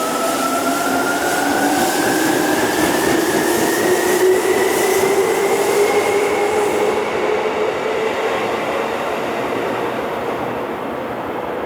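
Seibu electric commuter train running along the platform, its traction-motor whine rising steadily in pitch over the first half and then levelling off, over a running rumble that eases about seven seconds in.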